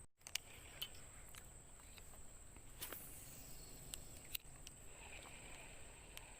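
Faint outdoor ambience: a steady high-pitched whine with a few scattered faint clicks and a soft rustle about three seconds in.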